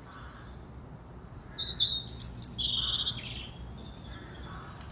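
A bird's alarm call: a quick run of high chirps about two seconds in, followed by one held high note, over a faint low background rumble.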